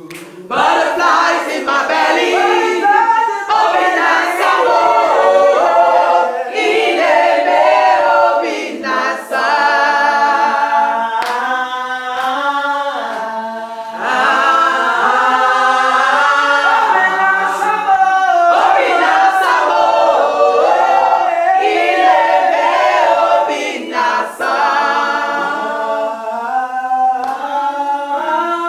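Mixed group of men's and women's voices singing a worship song a cappella, with no instruments.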